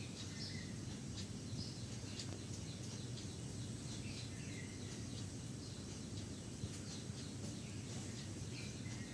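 Faint bird chirps scattered throughout, over a steady low hum.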